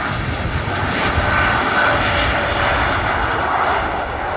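Boeing 787-9 airliner's twin jet engines at takeoff power, a loud, steady roar that eases slightly near the end.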